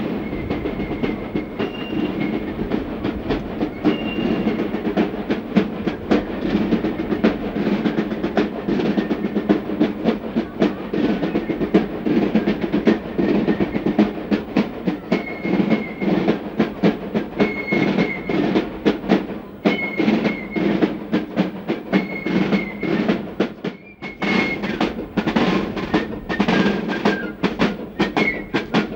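East German NVA military drum and fife corps (Spielleute) playing a parade march: a fast, steady drum rhythm with short high notes repeated over it.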